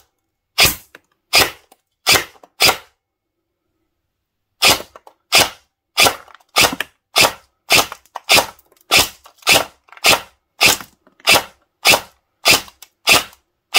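G&G MP5 TGM R5 airsoft electric gun firing single shots through a chronograph: a few shots, a pause of about two seconds, then a steady run of sharp shots at about one and a half a second.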